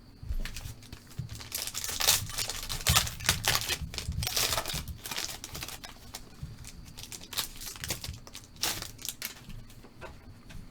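Crinkling and tearing of a 2020 Panini Mosaic Football trading-card pack wrapper being ripped open by hand: a dense run of irregular crackles, busiest in the first half and thinning out near the end.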